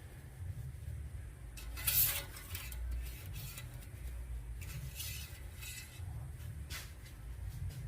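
Short metallic clinks and clatters of tools and parts being handled, the loudest about two seconds in and a few smaller ones after, over a steady low hum.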